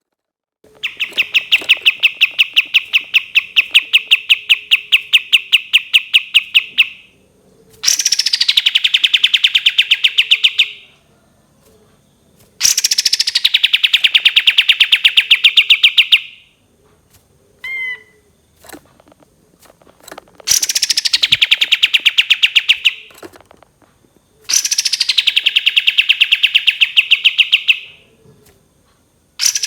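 Kapas tembak songbird singing its long rapid-fire trill ('tembakan panjang'): fast, evenly repeated notes, several bursts of three to six seconds each, most opening with a high note that falls into the trill, with short pauses and a couple of single notes between bursts.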